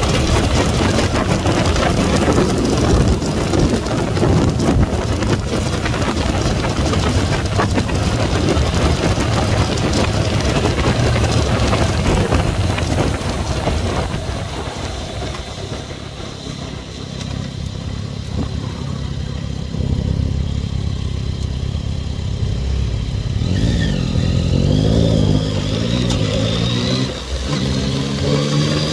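Yamaha MT-09's three-cylinder engine heard from the rider's helmet with heavy wind noise at cruising speed. The bike eases off and the sound drops for several seconds as it slows, then the engine revs up again with rising pitch, briefly dipping at a gear change near the end.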